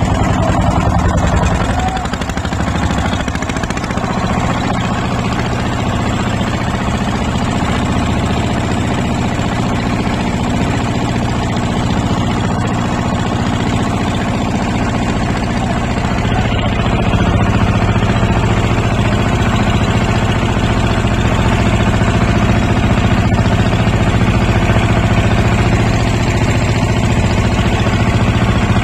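A boat's engine running steadily at a constant speed.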